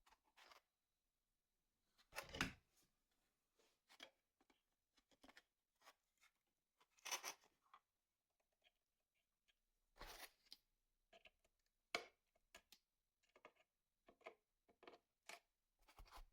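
Scattered handling noises of small parts and tools: short clicks, scrapes and rustles at irregular intervals, the strongest about two seconds in and again around seven, ten and twelve seconds.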